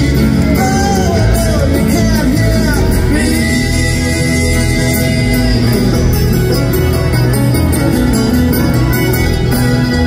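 Bluegrass string band playing live: strummed and picked acoustic guitars over upright bass with fiddle, with singing over the band.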